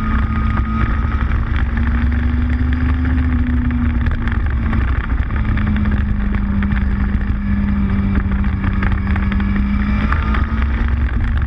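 Motorcycle engine running steadily at road speed, with wind buffeting the microphone; the engine note rises and dips a little a few times, dropping about five seconds in and climbing again near the end.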